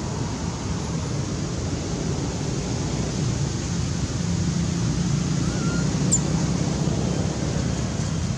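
Steady low rumbling outdoor background noise with no distinct events, and a brief faint high chirp about six seconds in.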